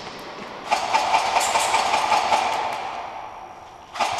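Heavy metal sliding door rattling and rumbling along its track. It is rolled from about a second in, fading, then set moving again sharply near the end.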